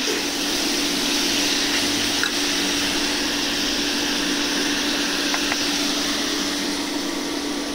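Chicken and turkey sausage with vegetables sizzling steadily in an electric grill pan set to 350°F, with a steady low hum underneath.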